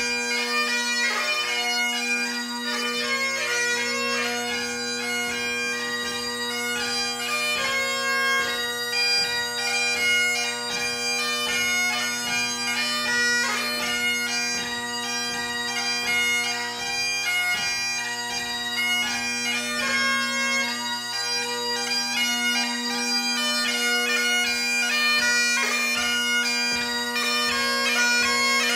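Great Highland bagpipe played solo: steady drones sounding under the chanter's melody, which is broken by rapid grace notes.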